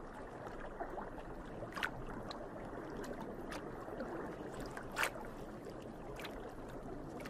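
Muffled underwater water ambience, a steady soft wash with scattered small clicks, two of them louder about two and five seconds in.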